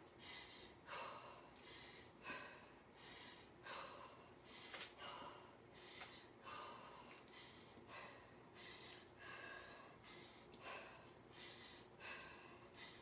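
A woman breathing hard from exertion in short, quick, regular puffs, roughly one to two breaths a second, during a high-intensity interval.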